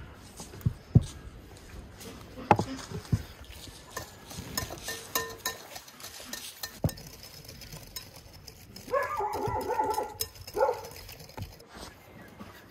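A dog's call, about a second long, around nine seconds in, followed by a shorter call just after. Light knocks and clicks of utensils against bowls come before it.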